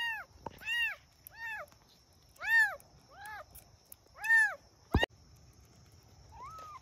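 Young kittens mewing: about six short, high mews, each rising and falling, in a quick series. A sharp click comes about five seconds in, followed by one fainter mew near the end.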